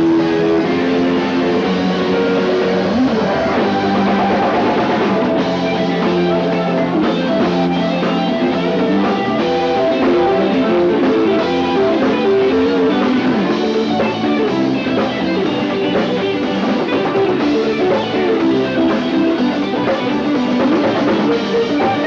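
Live rock band playing, with electric guitars and a drum kit, loud and continuous, heard through a home-video camcorder microphone.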